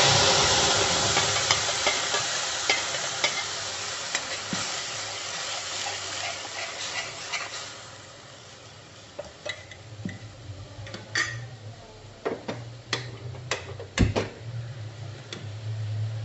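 Wet tomato, green chilli, ginger and garlic paste hitting hot oil in a metal kadhai: a loud sizzle that slowly dies away over about eight seconds. After it, a metal spatula scrapes and clicks against the pan as the masala is stirred.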